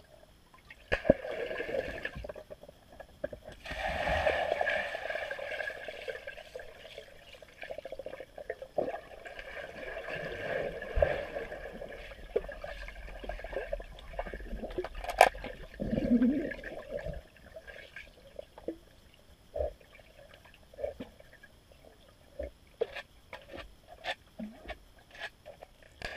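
A dog diving and paddling in a swimming pool, heard from underwater: muffled rushing and bubbling water with sharp clicks here and there, swelling louder about four seconds in and thinning out in the last third.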